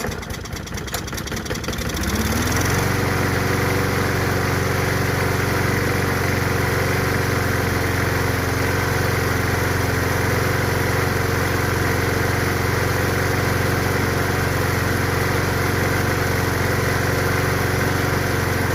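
Briggs & Stratton 190cc single-cylinder engine on a 21-inch push mower, pull-started on a squirt of starting fluid: it sputters, catches about two seconds in, revs up and then runs steadily. It only starts with starting fluid, which the owner takes for something stuck in the carburetor.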